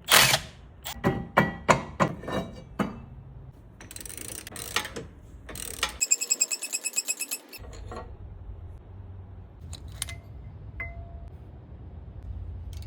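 Metal tools knocking and clinking during automotive wheel-bearing work: several sharp knocks in the first three seconds, then a short, rapid, even rattle about six seconds in.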